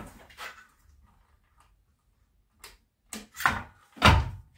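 A handheld circular saw's metal base plate knocking and clattering on a wooden board as it is handled and set in place, a few separate knocks with the loudest, deepest thump about four seconds in. The saw's motor is silent: it is not yet plugged in.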